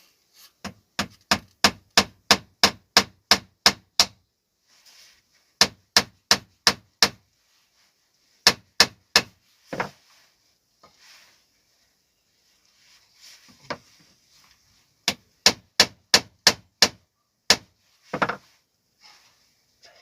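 A hammer driving nails into wood: four runs of quick, evenly spaced blows, about three a second, with short pauses between them.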